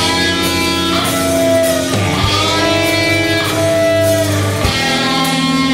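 Rock band playing live, an instrumental passage of sustained electric guitar chords over bass, the chords changing about every two seconds.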